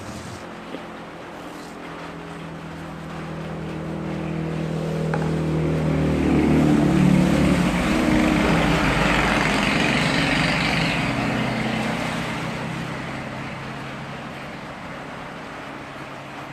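A motor vehicle drives past close by: its engine and tyre noise grow louder, peak about seven to ten seconds in, then fade away.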